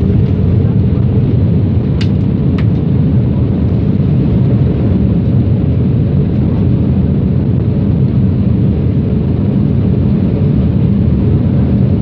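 Boeing 787 airliner noise on landing: a loud, steady, low roar of engines and rushing air that holds without change, with two faint clicks about two seconds in.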